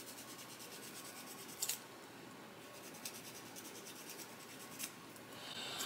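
Fingernails being filed: faint, rapid scratching strokes, with two slightly louder scrapes, one a couple of seconds in and one near the end.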